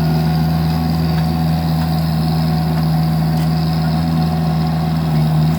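Vermeer mini skid steer's engine running at a steady, constant speed.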